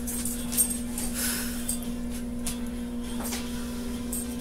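Room tone in a pause: a steady low hum with faint hiss, and a few faint soft clicks and rustles.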